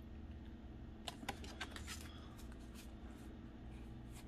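Pokémon trading cards being handled and fanned out in the hands: a few faint flicks and clicks of card against card, mostly between one and two seconds in, over a low steady hum.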